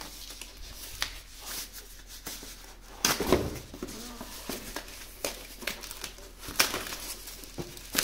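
Paper wrapping crinkling and rustling as it is handled and pulled off a charging cable's connector handle in a cardboard box. The rustles are irregular, with louder bursts about three seconds in and again near the end.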